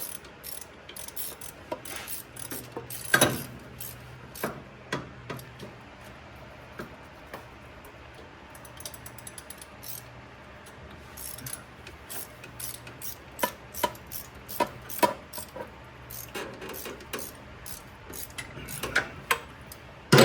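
Hand ratchet wrench clicking in short runs as fasteners on an engine are turned and tightened, with metal tool clinks and a sharp clank about three seconds in.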